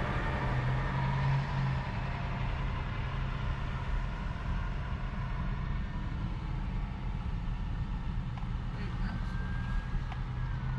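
Steady hum of a pickup truck's engine heard from inside the cab, with hard rain falling on the truck.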